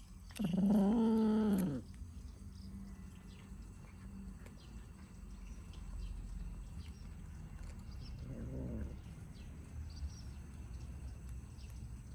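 A cat meowing: one loud, long meow starting about half a second in that falls in pitch at its end, then a fainter, shorter meow about eight seconds in.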